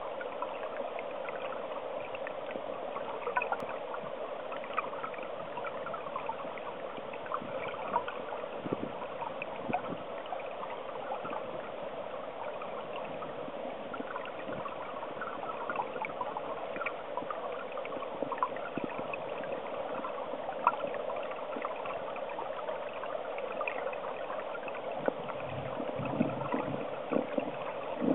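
Flowing stream water heard underwater: a steady rush with a scatter of small ticks and crackles. A low rumble joins near the end.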